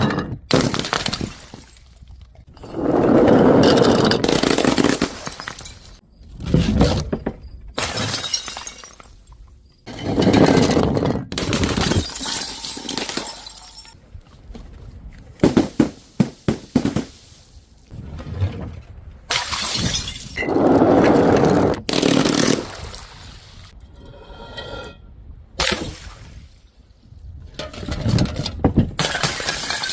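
Glass bottles and jars shattering one after another, about eight loud crashes a few seconds apart, each with a short tinkle of falling shards.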